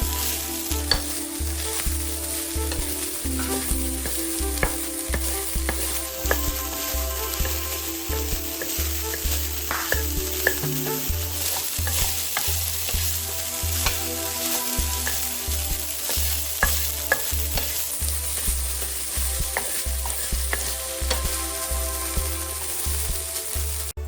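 Food frying in a hot pan with a steady sizzle while it is stirred, the utensil clicking against the pan now and then.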